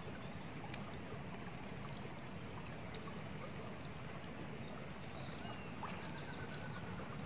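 Steady outdoor background hiss with a few faint, sharp clicks of a knife working through a jackfruit.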